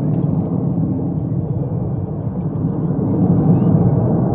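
Steady low jet rumble from the Red Arrows' BAE Hawk jets in flight, swelling a little about three seconds in.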